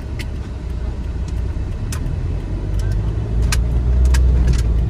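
A car driving: steady low engine and road rumble that grows louder about three seconds in, with a few faint clicks.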